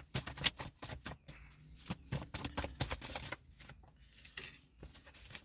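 A deck of cards being shuffled and handled: a quick, irregular run of soft flicks and clicks.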